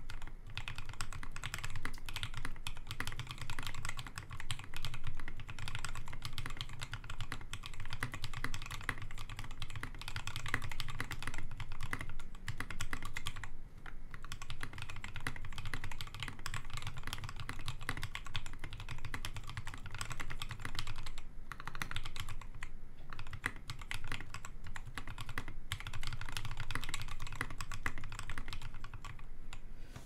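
Continuous fast typing on a Prophet 60% custom mechanical keyboard: lubed Tangerine linear switches in a polypropylene full plate, with PBT keycaps. A dense, even stream of keystrokes, broken by a few brief pauses.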